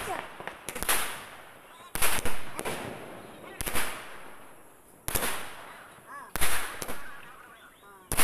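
Fireworks going off: a string of sharp bangs, roughly one a second, each trailing off after it.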